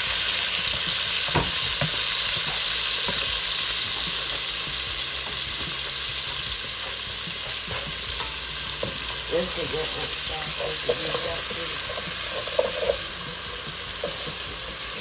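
Diced onions and green bell peppers sizzling in hot fat in a pot, a steady loud sizzle that slowly eases as they cook. A few scrapes and knocks of a wooden spoon stirring them.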